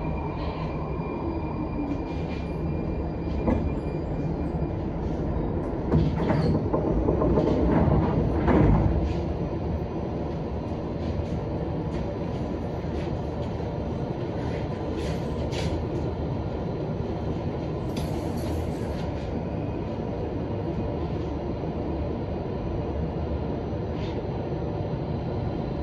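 Metro train coming to a halt at a station platform: the motor whine falls away over the first few seconds, a louder rush of noise follows about six to nine seconds in, then the standing train gives off a steady hum with scattered faint clicks.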